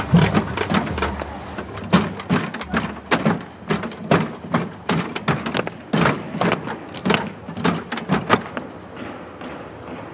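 A run of thumps and knocks, about three a second in uneven clusters, going on for some six seconds and stopping before the end, after music fades out at the start.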